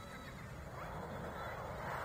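Jet engines of a formation of BAE Hawk jets, a broad rushing noise that swells steadily louder from about a second in as the formation approaches.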